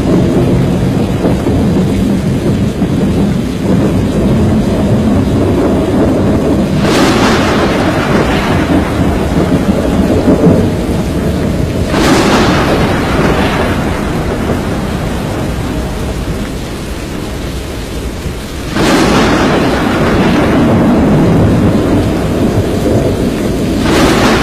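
Storm noise: a continuous low rumble of wind and rain, broken four times by sudden loud crashes that fade over a few seconds.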